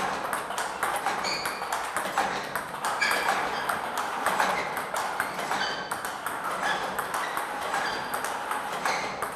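Ping-pong balls fed by a table tennis robot, struck with a racket and bouncing on the table: a quick, steady run of sharp clicks from a continuous practice rally.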